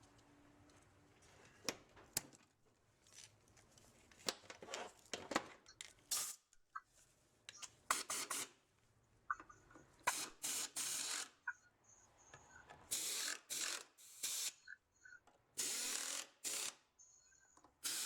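Workshop hand work on transmission parts: scattered clicks and knocks of parts and tools being handled, then a run of short hissing bursts, each under a second, from about ten seconds in.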